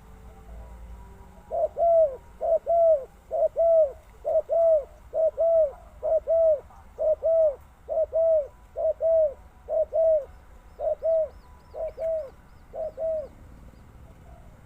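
Spotted dove cooing: a steady run of about thirteen paired, rounded coo notes, roughly one pair a second, starting about a second and a half in, the last few softer. A faint run of high chirps from a small bird comes in over the later coos.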